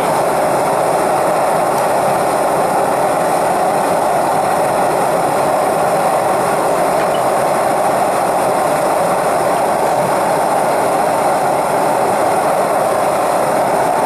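Propane torch burner firing into a small crucible furnace: a steady, even rush of gas flame.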